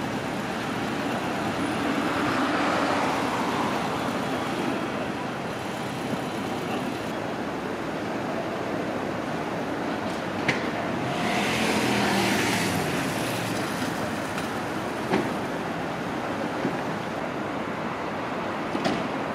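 City street traffic: a steady rush of road noise with passing cars, swelling as vehicles go by about two to three seconds in and again around twelve seconds in. A few short sharp clicks stand out over it.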